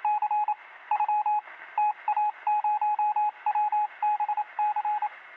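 Short electronic beeps at one steady pitch, coming in quick irregular groups of two to six, over a faint steady hiss.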